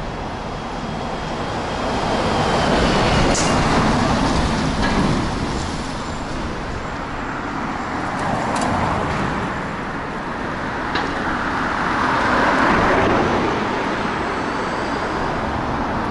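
Street traffic: cars passing on a city road, the tyre and engine noise swelling and fading twice, about three seconds in and again about twelve seconds in, over steady road noise, with a few brief ticks.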